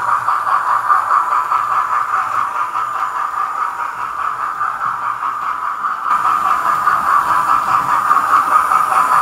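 Hornby TTS digital sound decoder in a model Peppercorn A1 steam locomotive playing quick, steady steam chuffing through the model's small onboard speaker, a thin, mid-pitched sound with little bass. It grows a little louder over the last few seconds.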